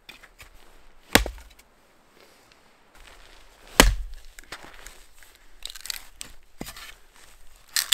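Hatchet chopping and splitting small lengths of dead spruce firewood: two loud sharp strikes about one and four seconds in, then several lighter knocks near the end.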